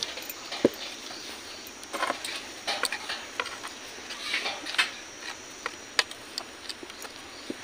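Utensil stirring thick rice-flour dough in a steel pot, giving scattered soft scrapes and light clinks against the metal.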